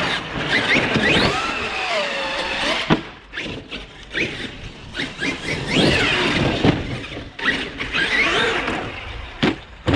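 Traxxas X-Maxx RC monster truck's brushless electric motor whining up and down in pitch as the throttle is worked, over the rush of its tyres on concrete, with a sharp knock about three seconds in and another near the end.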